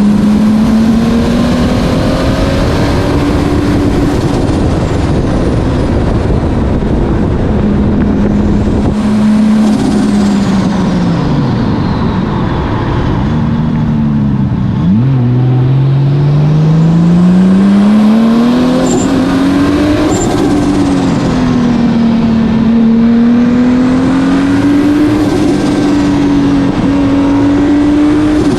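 Turbocharged 2JZ-GTE straight-six in a swapped Nissan Cefiro, revving up and down as it is driven hard in second and third gear through the bends. Its note drops low about halfway through, then climbs steadily. Faint high whistles sweep downward now and then.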